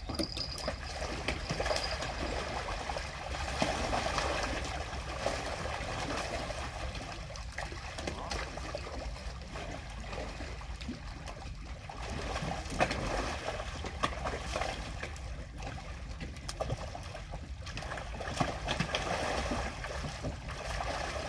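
Water trickling and lapping in an uneven wash, with scattered small ticks.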